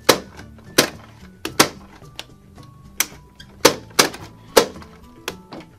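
Plastic toy popcorn maker being hand-cranked, giving about eight sharp plastic clicks at uneven intervals as the handle turns and the mechanism pops the dough popcorn out.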